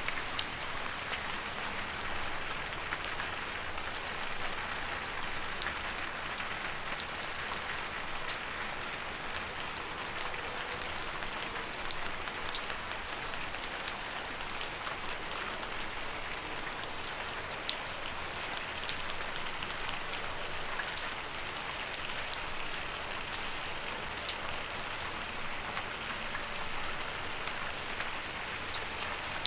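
Steady rain falling, a continuous hiss with many distinct drops pattering on a surface.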